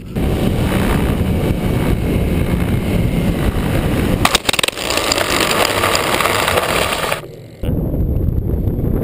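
Heavy wind rumble on outdoor camera microphones. From about four seconds in it gives way to a harsher, hissier rush from a camera mounted on an RC foam plane, then drops out briefly and the deep rumble comes back.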